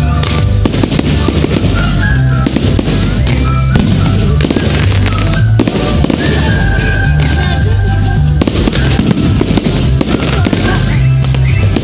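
Fireworks display: aerial shells bursting and crackling in quick succession, over loud music with held bass notes.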